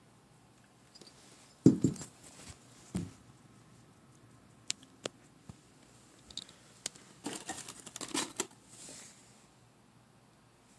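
Handling noises: a sharp knock about two seconds in and a softer one a second later as the aluminium engine cylinder is set down on a wooden board, then a few light clicks and a spell of crinkling and rustling from the cardboard parts box near the end.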